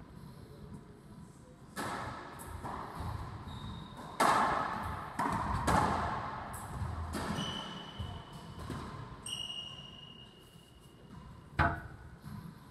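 Racquetball rally: several hard hits of the rubber ball on racquet strings and court walls, spaced a second or more apart, each ringing in the enclosed court. A few high squeaks from sneakers on the hardwood floor come between the hits.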